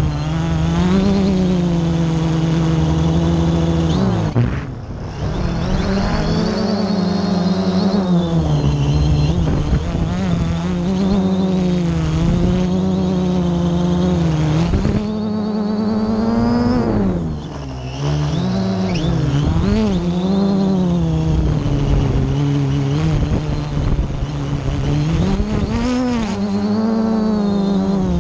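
Multirotor drone's electric motors and propellers buzzing loudly, heard from the camera on board. The pitch keeps rising and falling as the throttle changes, and the sound drops away briefly about four seconds in and again about seventeen seconds in as the throttle eases off.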